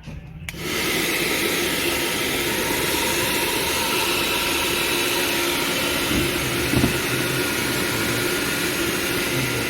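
Panasonic 3500 W hair dryer switched on with a click about half a second in, then running with a loud, steady blowing whir of its fan and motor.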